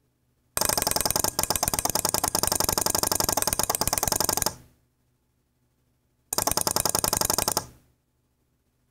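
A loud, rapid mechanical rattle of fast repeated clicks in two bursts, the first about four seconds long and the second about a second and a half, each dying away at the end.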